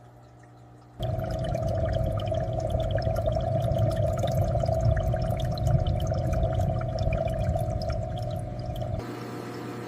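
Water bubbling and splashing in an aquarium, with many small pops and drips. It starts abruptly about a second in, over a faint low hum, and drops to a softer, steadier water sound near the end.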